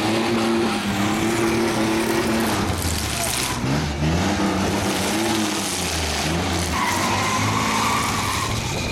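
Demolition derby trucks' engines revving hard under load, the pitch climbing, holding and dropping in several long pulls as the vehicles shove against each other, over the hiss of spinning tyres.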